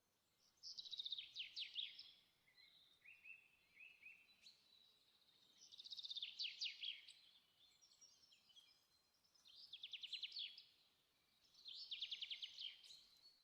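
A songbird singing four short phrases of quick, falling chirps a few seconds apart, with softer chirps between them.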